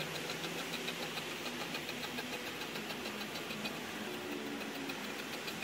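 A blade slicing through fiberglass cloth: an even run of crisp ticks, about five a second, as it cuts across the glass fiber strands.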